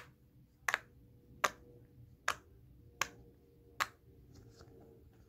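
Six sharp clicks from a fidget toy being worked by hand, evenly spaced about one every three-quarters of a second, stopping about four seconds in.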